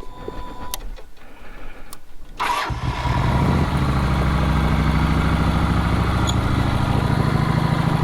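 Motorcycle engine starting about two and a half seconds in, then running at a steady idle.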